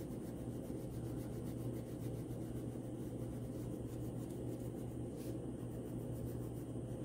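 Orange wax crayon rubbed across drawing paper in quick back-and-forth coloring strokes, over a steady low hum.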